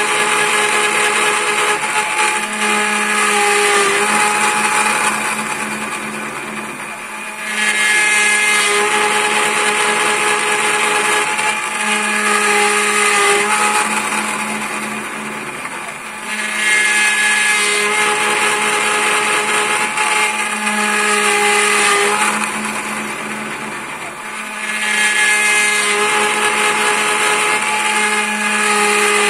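Homemade CNC lathe machining a wooden sphere: the spindle's cutter bites into the spinning wood with a steady power-tool whine. The cutting noise swells and eases off about every eight to nine seconds as the cutter makes its passes over the ball.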